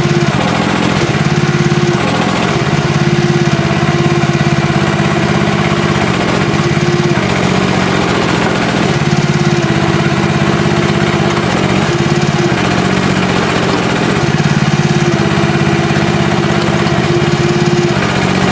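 Small gasoline engine of a 1-ton mini excavator running steadily, its note shifting every second or two as the machine's hydraulics are worked.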